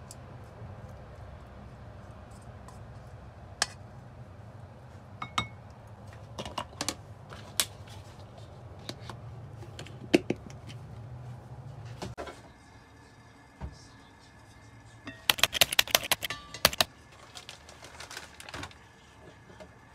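Kitchen utensil knocking and scraping against a ceramic bowl as marinated chicken wings are scooped in, then a plastic bowl lid and its vent tab clicked into place, scattered sharp clicks over a low steady hum. About fifteen seconds in comes a quick run of a dozen or so sharp clicks, the loudest sounds here.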